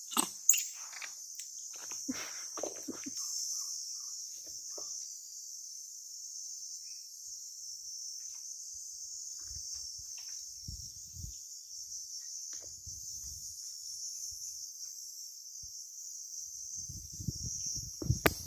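A steady, high-pitched insect chorus, with a few sharp clicks in the first seconds and low rustling thumps near the end.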